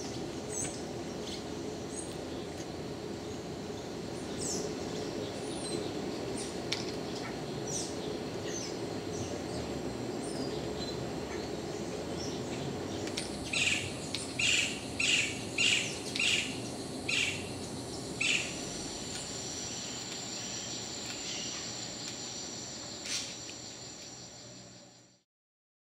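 Tropical forest ambience: a steady background hum of insects with scattered high bird chirps. About halfway through a bird calls a run of about eight loud, evenly spaced notes, then a steady high insect buzz carries on until the sound fades out near the end.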